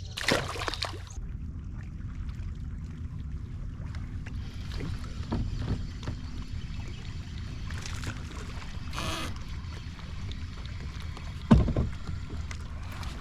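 Sounds of a fishing kayak on the water: a steady low wind rumble on the microphone with brief splashy hisses, and one sharp knock about three-quarters of the way through.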